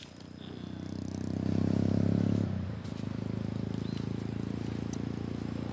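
An engine running with a low, fluttering drone that swells to its loudest about two seconds in, dips briefly, then settles to a steady hum.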